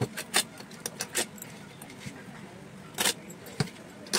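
Sharp metallic clinks of steel nails knocking against an air-cooler fan motor's casing as it is handled, a handful of irregular clicks.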